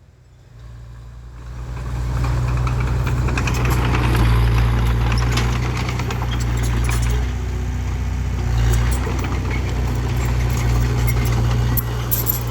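Heavy diesel engine of earthmoving machinery running steadily, rising in level over the first two seconds, with a few short clicks and rattles near the end.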